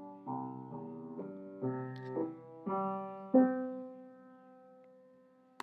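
Piano playing the closing chords of the song, a series of struck chords ending on a final chord that rings out and slowly fades.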